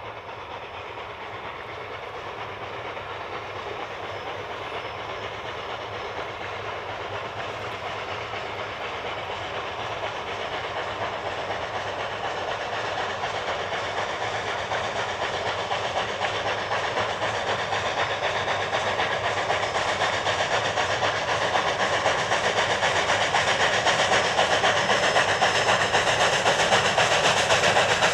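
Steam locomotive hauling a passenger train, its exhaust and rolling wheels growing steadily louder as it approaches.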